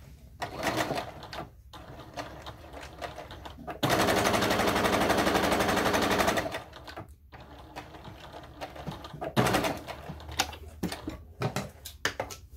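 Domestic electric sewing machine stitching a seam in one steady run of about two and a half seconds, starting about four seconds in. Scattered short clicks and rustles come before and after it.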